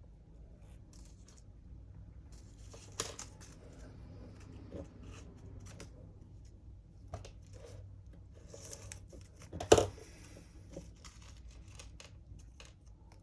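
Small parts and tools handled on a workbench: scattered light clicks and rustles, with a sharp click about 3 s in and a louder one near 10 s.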